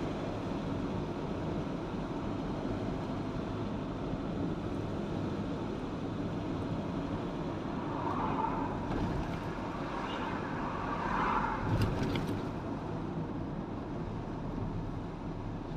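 A car driving along a road: steady engine and tyre rumble, with a louder swell of noise between about eight and twelve seconds in and a few faint clicks near its end.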